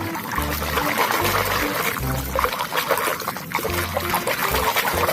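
Water pouring and trickling over a muddy toy as it is rinsed clean, with background music and a stepping bass line underneath.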